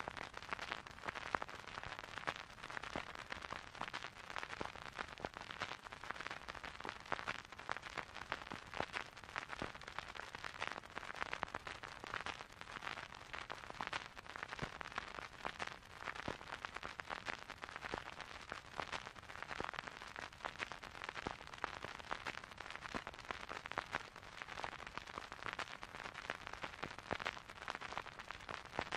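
Dark ambient noise piece: a dense, irregular crackle of clicks over a hiss centred in the midrange, holding steady with no tones, melody or beat.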